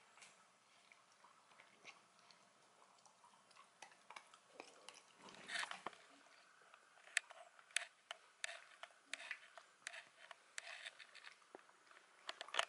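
Dachshund eating: quiet, irregular chewing and crunching clicks from its mouth. A brief louder scuffle comes about five and a half seconds in, and a run of sharper clicks, about one or two a second, fills the second half.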